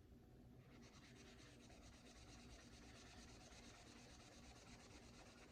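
Faint, fast back-and-forth scrubbing on a vinegar-soaked Glock pistol barrel to wear off its finish, starting about half a second in and keeping an even rapid stroke.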